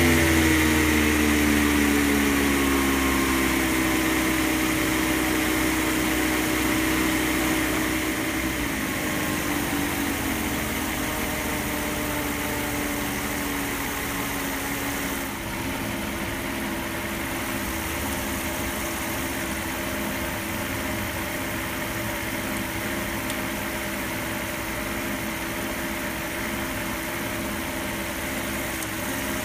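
Mercedes-Benz SL600's V12 idling rough just after starting. The idle speed eases down over the first several seconds, drops lower about eight seconds in, and then holds steady.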